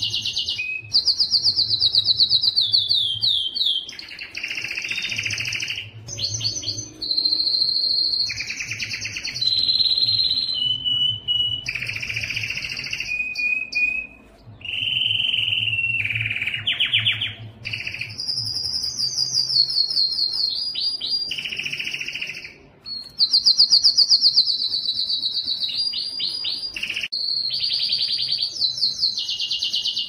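Domestic canary singing a long song of rapid trilled phrases, some falling in pitch and others held on one note, with short breaks between them.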